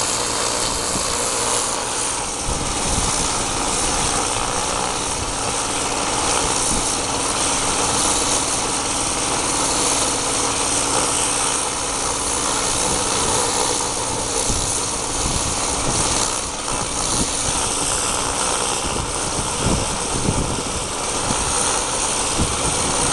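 Gas-engine pressure washer running steadily, with the constant hiss of its spray wand blasting water onto clay roof tiles to clean them.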